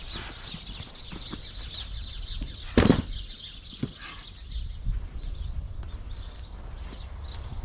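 A heavy wooden beam dropped onto dry dirt lands with one loud thud about three seconds in, with a few lighter knocks and scuffs around it. Small birds chirp constantly in the background.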